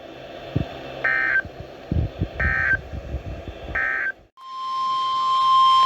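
Emergency Alert System signalling: three short bursts of SAME digital data tones, the end-of-message code closing the previous warning. A brief gap follows, then the weather radio's steady warning alarm tone starts and holds.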